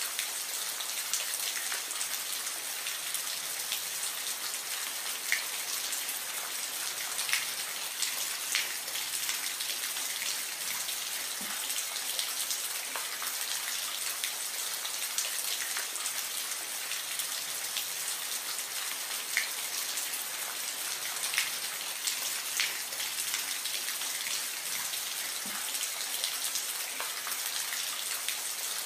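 Steady soft rain: an even hiss of falling rain with scattered single drops splashing close and sharp every second or two.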